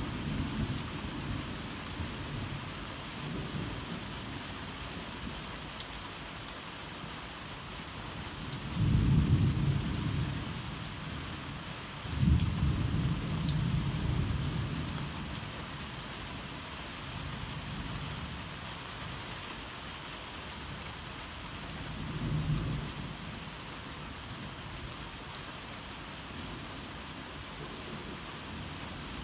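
Steady rain with thunder rumbling several times: a swell about nine seconds in, a sharper clap about twelve seconds in that rolls on for a few seconds, and a softer rumble later on.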